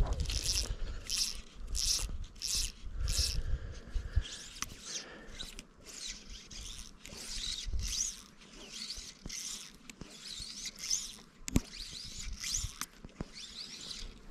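Fly line being stripped through the rod guides by hand: short zipping pulls, about one every three-quarters of a second at first, then quicker and less regular.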